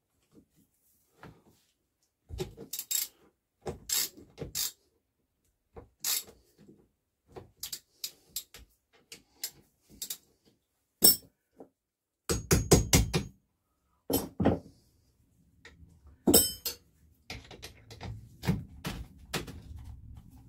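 Scattered metallic clicks and knocks of a ratchet and socket working the bolts on a small engine, with a quick run of sharp clicks about twelve seconds in.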